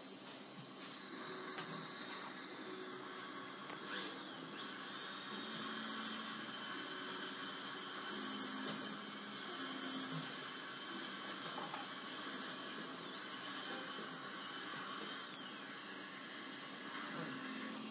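Dentist's high-speed drill whining over a steady hiss: it spins up about four seconds in, holds a steady high whine, dips in pitch twice near the end, then winds down.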